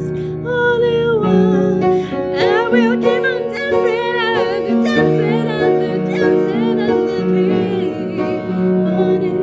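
Slow instrumental music: sustained low notes shifting every second or so, under a wavering, gliding melody.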